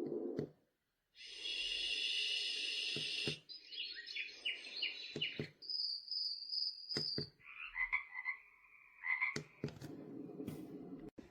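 A white-noise sound machine's speaker stepping through short nature-sound tracks one after another: a high hissing insect-like buzz, repeated chirps, a steady high trill, then frogs croaking. Sharp clicks mark the switches between tracks.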